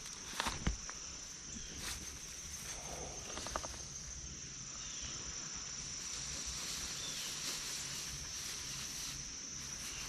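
Steady high-pitched drone of insects, such as crickets, in the background, with a few light clicks in the first second.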